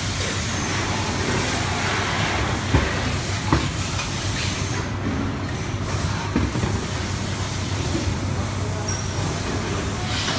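Steady background rumble with a low hum, and a few short clicks about three seconds in, again half a second later, and near six and a half seconds.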